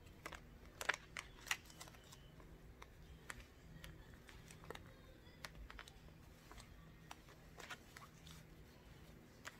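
Faint, scattered clicks and light taps of hands handling a piece of heat transfer vinyl on its transfer tape, positioning it on a cloth face mask. The sharpest two clicks come about a second in.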